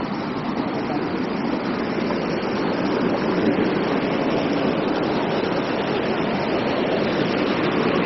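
Triberg waterfalls' mountain stream rushing and cascading over mossy boulders, a steady, unbroken rush of water.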